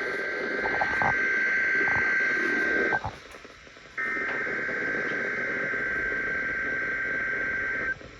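Emergency alert attention tone received over the radio through static hiss: a steady single-pitched tone that cuts out about 3 s in, returns a second later and stops near the end.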